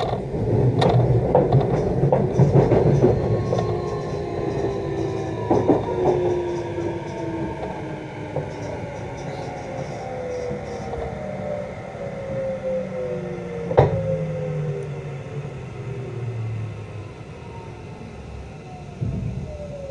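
Electric commuter train heard from on board, braking into a station: the traction motors whine in several tones that slide steadily down in pitch as it slows. Under it, the running rumble fades, with sharp knocks of the wheels over rail joints early on and once more about 14 seconds in.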